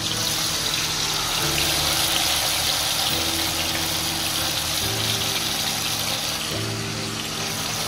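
Marinated chicken pieces deep-frying in hot oil in a kadhai: a loud, steady sizzle that starts as the pieces go in. Under it, background music with low held chords that change every second or two.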